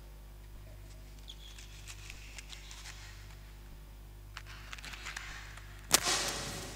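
Scattered small clicks and scratches from objects and electronics being handled in an improvised sound-art performance, over a steady low hum. Near the end a sharp crack sets off a burst of hiss that fades within about a second.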